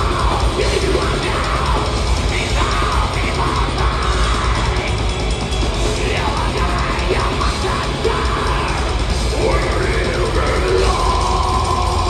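Black metal band playing live at full volume: distorted guitars and drums under harsh screamed vocals, heard from the audience. A held high note comes in near the end.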